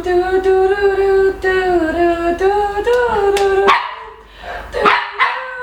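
A young woman vocalizing the intro melody of an EDM song with her mouth: one long held, wordless sung note that slides slowly up and down in pitch, breaking off a little under four seconds in, followed by a couple of short breathy sounds and a new held note near the end.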